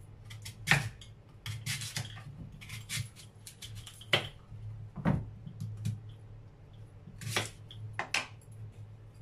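A kitchen knife chopping through raw sweet potatoes on a cutting board: irregular knocks and clicks, with a few harder chops spaced a second or more apart, the loudest a little under a second in.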